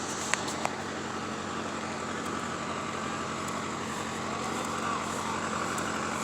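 Case skid steer engine running steadily, with two sharp clicks a third of a second apart near the start.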